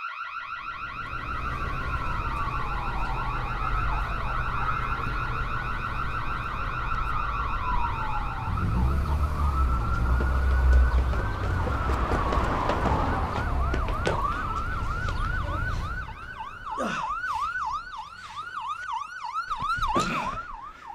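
Police sirens wailing, two slow rising-and-falling wails overlapping, over a low rumble. About 16 s in the rumble drops away and a siren switches to a fast yelp, about three cycles a second.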